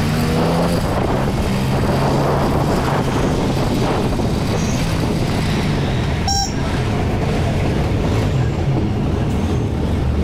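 Motorcycle riding in traffic: its engine running under a steady rush of wind and road noise, with a short horn beep about six seconds in.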